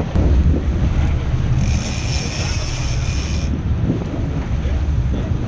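Sportfishing boat's engines running in a steady low rumble, with water churning at the stern and wind buffeting the microphone. A hiss rises for about a second and a half near the middle.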